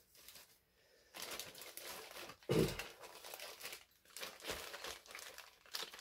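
Clear plastic bags of model-kit parts crinkling as they are handled, with a thump about two and a half seconds in.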